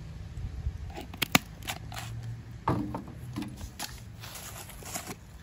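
Clicks and rustling from a plastic seasoning jar and its lid being handled while white powder is put into a cooking pot. The loudest is a sharp click about a second in, over a low steady hum.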